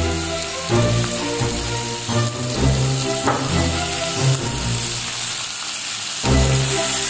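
Chunks of pork belly sizzling steadily as they fry in hot garlic oil, turned over with a spatula, under background music.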